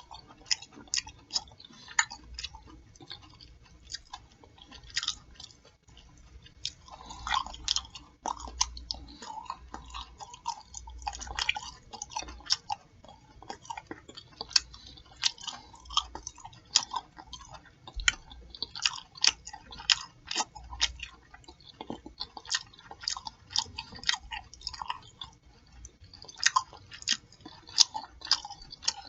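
A person chewing food open-mouthed into a turned-up microphone: a steady, irregular run of wet smacks and sharp mouth clicks, several a second.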